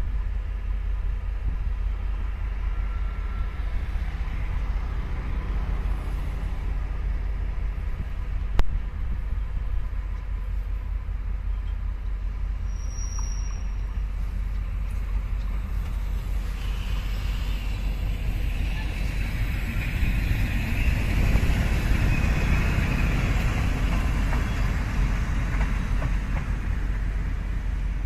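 Orange electric locomotive, an E400-class type, running light along the station tracks over a steady low rumble. Its running noise grows louder and brighter in the second half as it approaches. There is one sharp click about eight seconds in.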